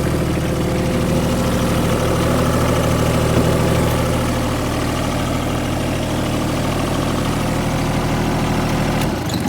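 The Kubota G1700 ride-on mower's diesel engine idling steadily, then shut off about nine seconds in, its note dying away.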